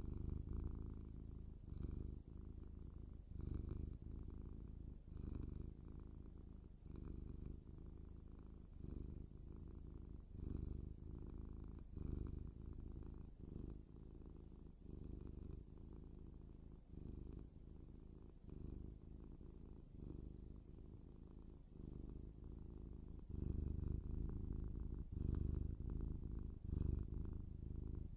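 Domestic cat purring steadily. The purr swells and eases with each breath, about once every one and a half to two seconds.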